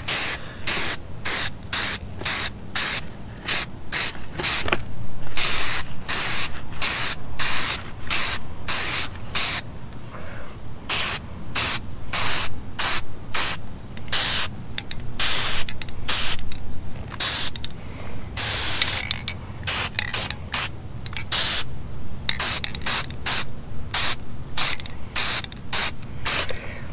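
Aerosol spray-paint can sprayed in dozens of short hissing bursts, two or three a second, with a few held for a second or so.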